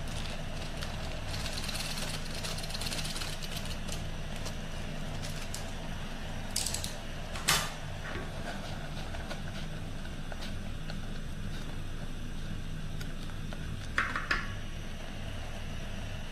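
Portable butane gas stove burning under a steel pot of noodles at a rolling boil, a steady low rumble. Two brief sharp knocks come about halfway through and again near the end.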